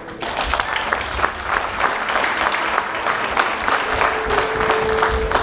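Audience applause, many hands clapping, starting suddenly and carrying on for about five seconds, with music quietly underneath near the end.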